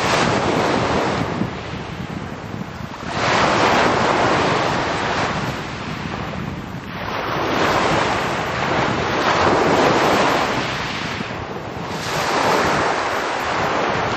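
Small sea waves breaking and washing up a pebble beach, surging and ebbing four times, with wind buffeting the microphone.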